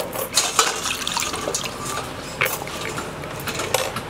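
Wet squelching and dripping as hands grip and turn a raw, marinade-coated whole chicken on a wooden board, with many small scattered clicks and ticks.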